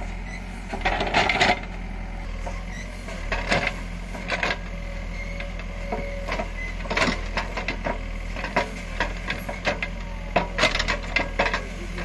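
JCB 3DX backhoe loader's diesel engine running steadily under load while the bucket digs, with repeated sharp clanks and knocks from the bucket and its linkage working the soil.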